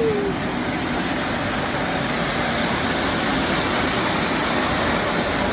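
Electric blower fan of a 6 ft gorilla air waver running steadily, a loud even rush of air inflating the tube figure.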